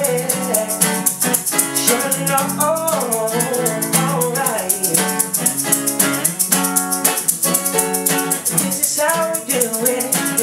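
Acoustic guitar strumming with a fast, steady shaker rhythm and a wordless melody line gliding up and down over it.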